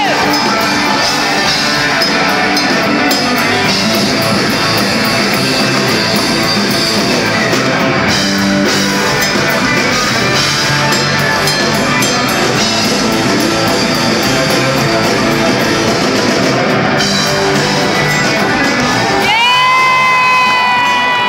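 Live rock band playing loud, with electric guitars and a drum kit. A long held high note rings out near the end.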